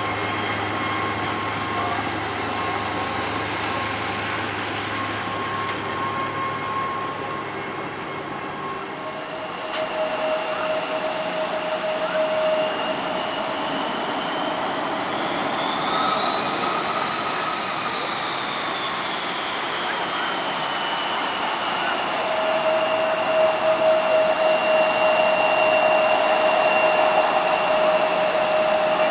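Airliner jet engines whining at taxi power: first a Swiss Airbus A330's turbofans, then, after a cut about nine seconds in, an Alitalia Embraer regional jet's engines. The jet's whine glides up and back down around the middle and grows a little louder near the end as it taxis past.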